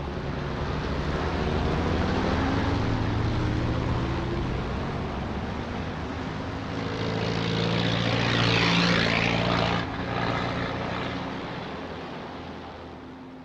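Motor vehicle engines droning as a convoy drives past, swelling as one passes close about eight to nine seconds in, then fading away.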